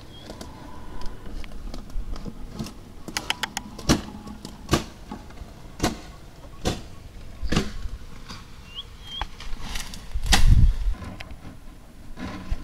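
Irregular sharp knocks and clicks, roughly one every second or so, with a couple of short high chirps about nine seconds in and a brief low rumble about ten and a half seconds in.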